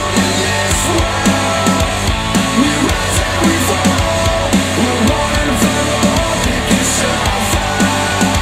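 Hard-driving rock track with electric guitar and drum kit, played back through KEF R3 bookshelf speakers, with a quick, steady beat throughout.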